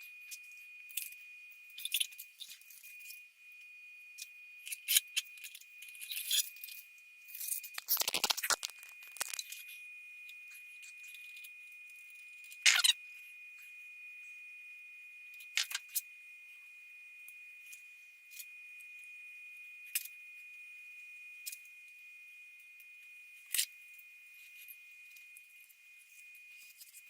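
Scattered metallic clinks and rattles of tools and engine parts being handled on a cast-iron V8 block, with one heavier clunk about eight seconds in, over a faint steady high-pitched whine.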